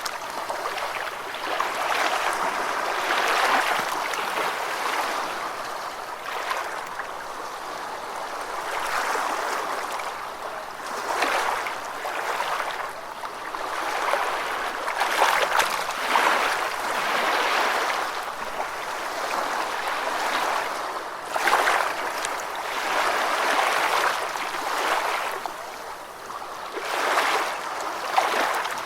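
Gentle ocean waves washing onto a beach, the rush of water swelling and falling back every few seconds.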